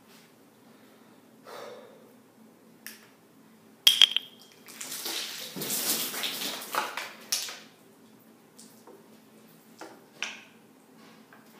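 Two sharp clicks from a plastic drink bottle about four seconds in, then a few seconds of hissing, splashing noise as the drink is chugged from the upturned bottle and spills.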